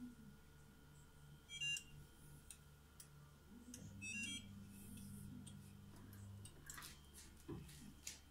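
Electric oven's control panel beeping twice, short electronic beeps a few seconds apart, as its buttons are pressed to switch it off, with a low hum for a few seconds after the second beep. Near the end come soft knocks and rustles as the oven door is opened.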